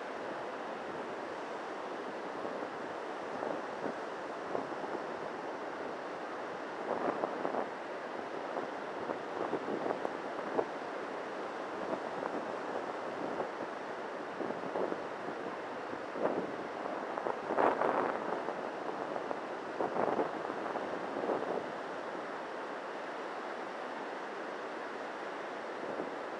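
Steady noise of surf breaking on a sandy beach, mixed with wind on the microphone that rises in short louder gusts several times, the strongest a little past two-thirds of the way through.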